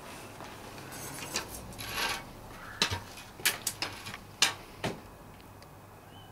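Handling noise from a homemade wooden-boom beam antenna and its coax cable being worked on paving slabs: some rustling about a second in, then a handful of sharp clicks and knocks.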